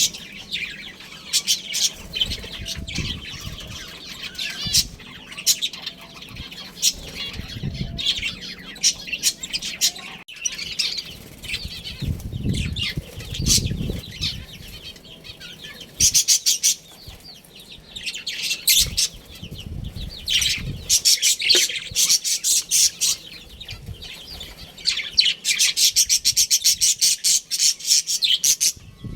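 Budgerigars chirping and chattering in rapid runs of sharp high chirps, loudest in bursts about halfway through and again near the end, with wings flapping at times.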